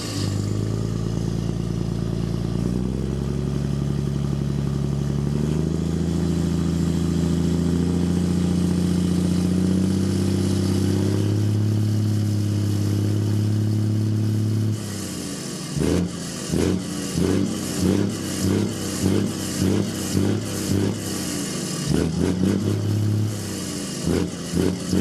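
Volvo FH4 510 truck's 13-litre straight-six diesel revved loud through its short side-exit exhaust pipe. The revs climb in steps and are held high for about fifteen seconds, then drop back to a string of short throttle blips about once a second.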